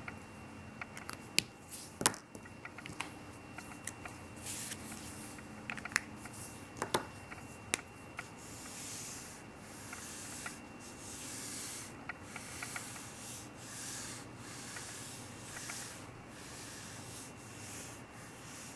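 Felt-tip marker drawing on paper: a run of short, scratchy strokes of the tip across the sheet. In the first several seconds a few sharp clicks and taps stand out, louder than the strokes, as the paper and pens are handled.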